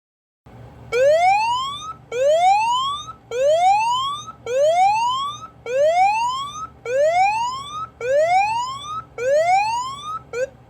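Phone anti-theft alarm app sounding a siren-like whoop alarm: a rising sweep about a second long, repeated eight times back to back, with a ninth cut short near the end. It is the app's charger alarm, set off by the charger cable being unplugged from the phone.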